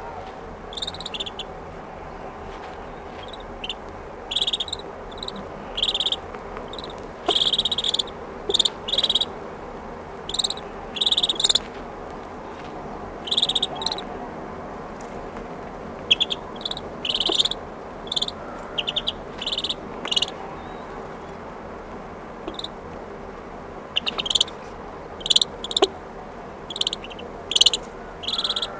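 Shelduck ducklings calling close to the microphone: short, high-pitched peeping calls, often two or three in quick succession, with irregular pauses of a second to a few seconds. Under them runs a steady, mushy background noise.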